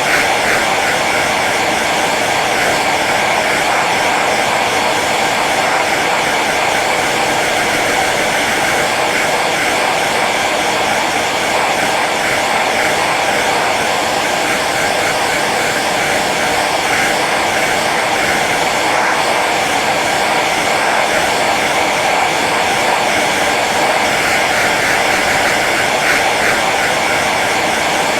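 Hair dryer running continuously on its low setting: a steady, even whoosh of air with a faint motor hum.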